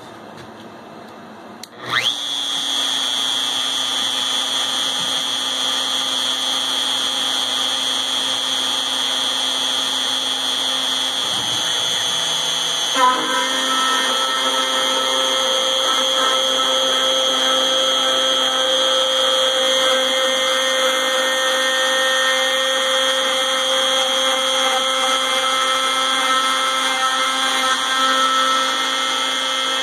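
A CNC router's trim-router spindle spins up about two seconds in, on its lowest speed setting, and runs with a steady high whine. Around thirteen seconds in there is a brief knock and the sound takes on extra steady tones as the quarter-inch spiral bit starts cutting dry into 6061 aluminum plate.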